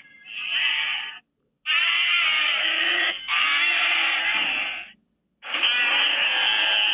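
Creature sound effect for a baby spider: dense, harsh animal-like calls in four bursts of about a second or more each, separated by short silences.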